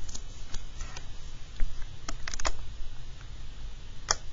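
A few short, light clicks and taps over a low steady hum, with a small cluster of them a little past two seconds in and a sharper click near the end.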